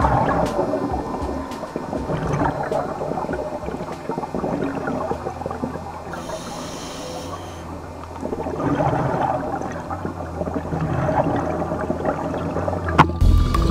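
Scuba diving regulator breathing underwater: bubbling, gurgling exhales, with a short hissing inhale about six seconds in.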